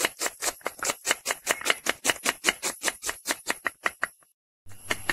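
Kitchen knife chopping onion on a wooden chopping block: quick, even strokes at about six or seven a second, stopping about four seconds in.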